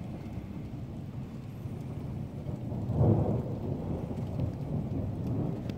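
Thunder rumbling low, swelling to a loud peak about three seconds in and then rolling on.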